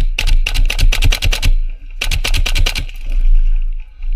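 Gas blowback airsoft rifle firing two rapid strings of sharp shots: about ten in the first second and a half, then a shorter string of about eight after a brief pause.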